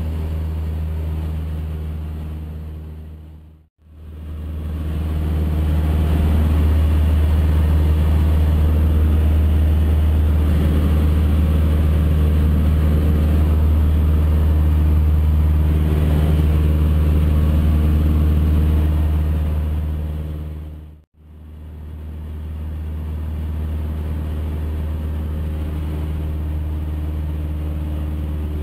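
Cessna 152 Aerobat's four-cylinder engine and propeller droning steadily, heard inside the cockpit. The drone fades out and back in twice, about four seconds in and again about twenty-one seconds in.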